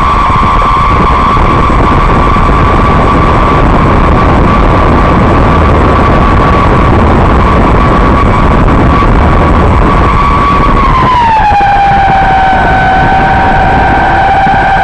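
Motors and propellers of a radio-controlled Canadair CL-415 model flying boat, heard close up from on board: a loud steady whine over a rushing noise, which drops to a lower pitch about eleven seconds in as the power comes back and the model slows on the water.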